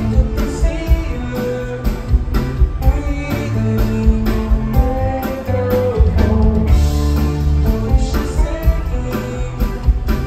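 Rock band playing live: guitar lines over bass and a steady drum beat, with one note bent upward about halfway through.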